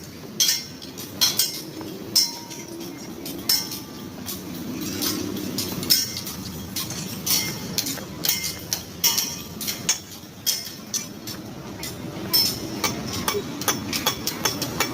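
Irregular metallic clinks and hammer strikes from construction work on steel, over a low steady rumble.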